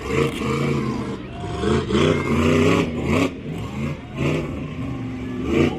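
Monster truck engine revving hard in repeated surges, its pitch climbing and dropping every second or so during a freestyle run.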